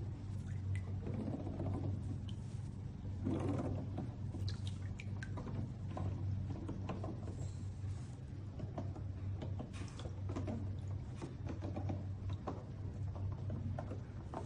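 Keys of a Dareu EK108RT magnetic-switch keyboard being pressed, giving irregular clicks over a steady low hum.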